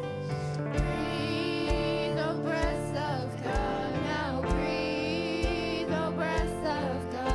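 Church worship band playing a slow song: a sung melody over held keyboard chords, with a kick drum beating a little under once a second.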